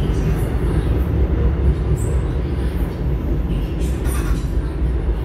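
Korail electric subway train running, heard from inside the passenger car: a steady, heavy low rumble of wheels and running gear, with a few brief faint high hisses.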